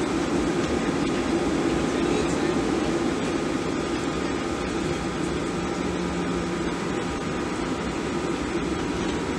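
Steady roar of a Boeing 737-700's CFM56-7B turbofan engines and rushing air, heard from inside the passenger cabin.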